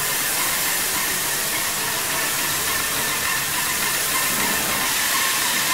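Airless spray gun hissing steadily as it atomises paint under high pressure from a Putzmeister A 190 airless sprayer.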